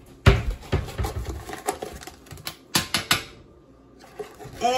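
A quick, irregular run of clicks and knocks from kitchen containers and utensils being handled, with one heavy knock just after the start. It stops a little over three seconds in.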